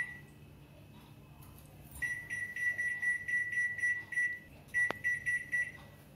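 Convection microwave oven's keypad beeping as the cooking time is set: a rapid run of short high beeps, about five a second, starting about two seconds in. A click near the end is followed by a few more beeps.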